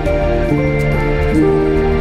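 Background music with held notes that change pitch every half second or so.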